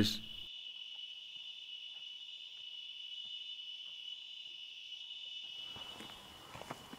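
Steady, high-pitched insect chirring, a continuous even drone of crickets or cicadas. Near the end a faint rustling with small clicks joins in.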